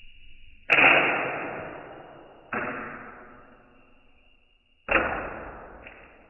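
A 3D printed TicTac launcher firing three times, each shot a sudden snap that dies away slowly over a second or two.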